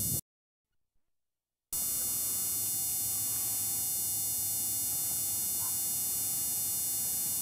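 Steady hiss and electrical hum with a faint high whine, the background noise of an old videotape recording. It is broken near the start by about a second and a half of dead silence at an edit.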